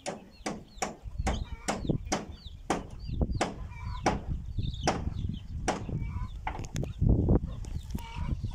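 Hammer blows driving a nail through a corrugated slate roofing sheet into the timber beneath. The blows are steady, about two a second, and grow lighter near the end.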